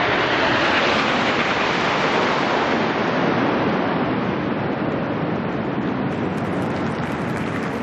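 Red Arrows' BAE Hawk jets flying past in formation: a loud, steady rushing roar that eases off slightly near the end.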